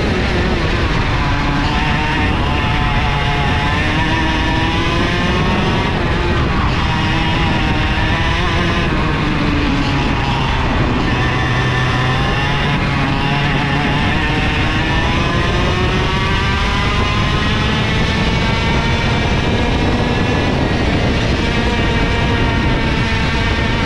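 IAME KA100 air-cooled 100cc two-stroke kart engine at racing speed, heard from on board: its pitch climbs steadily for several seconds and then drops, again and again, as the kart accelerates and brakes around the track.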